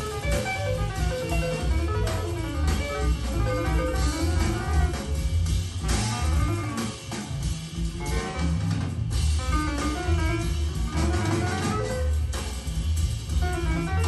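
Monitor Audio Silver 100 6G bookshelf speakers playing instrumental music in a room, with a steady bass line and drums under a melody.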